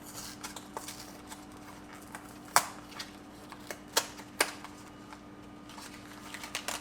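A cardboard box being torn open and its packaging handled: small crackles and ticks, with three sharp clicks near the middle, over a steady low hum.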